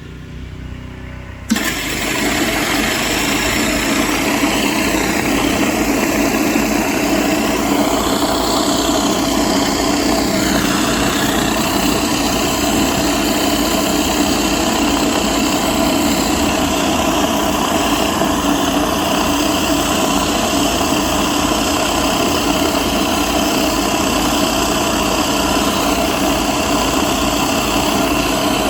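Gas-engine Craftsman pressure washer coming in suddenly about a second and a half in, then running steadily under load, pushing water through a surface cleaner, with a hiss of spray over the engine.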